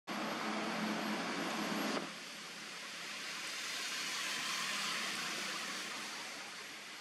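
Steady rushing outdoor background noise that swells and then fades around the middle. A deeper rumble under it for the first two seconds cuts off abruptly.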